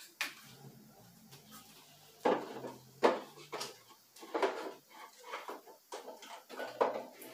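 Plastic bottles and jars of hair products being set down and shuffled on a small wall cabinet's shelves, giving a string of irregular knocks and clatters, the loudest about three seconds in.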